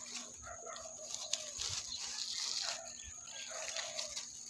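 Dry grass and leaves rustling and crackling as a hand reaches in and picks small wild cucumber fruits, loudest for about a second and a half near the middle, with several short chicken clucks.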